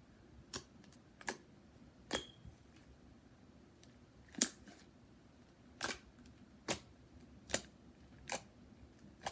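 Fluffy slime with shaving cream worked in, being kneaded and folded by hand, giving a sharp pop of trapped air about once a second.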